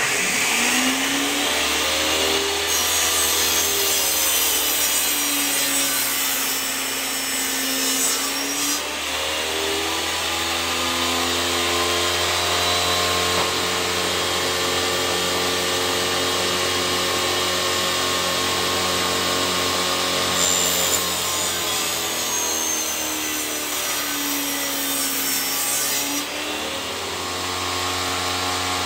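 Table saw switched on, spinning up and running steadily. It makes two cuts through pallet wood, each about six seconds long, with the motor's pitch sagging as the blade bites and the hiss of the blade in the wood over it.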